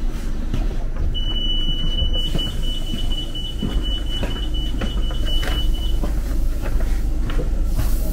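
Steady low rumble of a sleeper train carriage, with scattered light clicks and knocks. About a second in, a single high steady tone starts, like an electronic beep, and holds for about five seconds before stopping.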